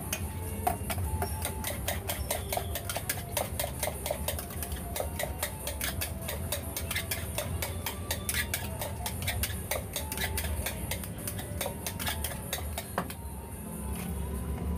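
Rapid, repeated metallic clinking of a utensil against a metal mug at a martabak stall, several clicks a second, over a steady low hum.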